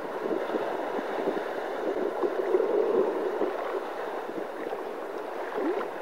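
Shallow sea water washing and splashing around rocks as small waves break, a steady rushing that swells a little about halfway through.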